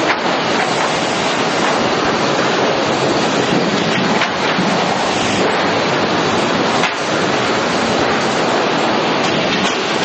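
Hardwood lumber waterfall grading deck running: a loud, steady mechanical din of chain conveyors, with boards sliding and knocking against the decks now and then.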